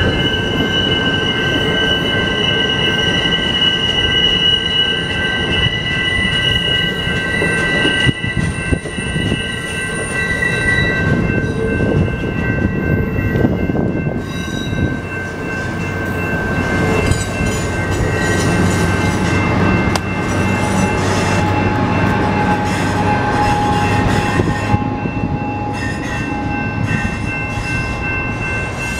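Amtrak passenger cars rolling past over a grade crossing: steady rumbling wheel noise with high, steady squealing tones over it, strongest in the first half.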